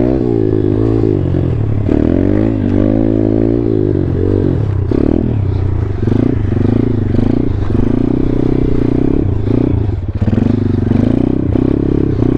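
2019 Thumpstar 140cc pit bike's single-cylinder four-stroke engine under throttle while the bike is held up in a wheelie. The revs rise and fall for the first few seconds, then are held high with brief dips as the throttle is worked to keep the front wheel up.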